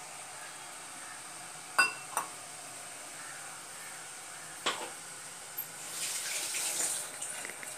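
Kohlrabi kootu simmering in a clay pot on a gas burner: a steady faint sizzle. A few sharp clinks come about two and five seconds in, and a louder hiss about six seconds in.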